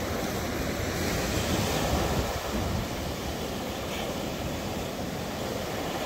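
Sea surf breaking and washing onto the beach, a steady hiss of noise, with wind rumbling on the microphone.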